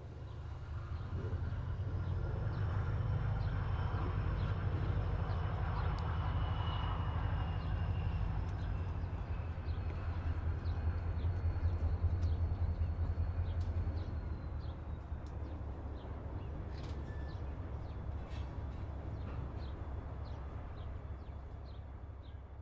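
CSX diesel-electric road locomotive running at low speed, its engine a deep steady rumble that builds over the first few seconds and eases off after about fourteen seconds. A faint high thin whine and a few light ticks sit above it.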